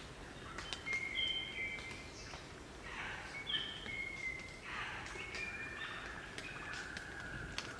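A group of crimson rosellas calling: many short, level whistled notes overlapping one another, with two rougher, harsher chattering calls about three and five seconds in.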